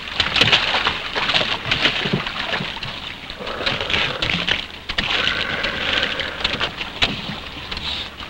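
Water splashing and spraying from a bilge pump's hose as the boat is pumped out, with scattered knocks and clatter.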